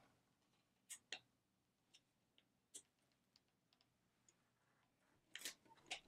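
Near silence with a handful of faint clicks and knocks from hands handling a tumbler heat press and the mug clamped in it. The loudest click comes about five and a half seconds in.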